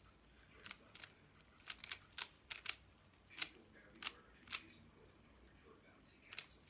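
A 3x3 speed cube's layers being turned by hand, with sharp plastic clicks coming in irregular quick clusters, then a short pause about two-thirds of the way through before the turning resumes near the end.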